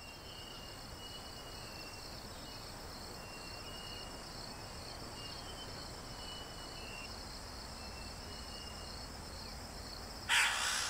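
Rainforest insect chorus: a steady high, finely pulsing trill, with faint thin high tones coming and going beneath it. Near the end a short, louder rustling hiss cuts in for about half a second.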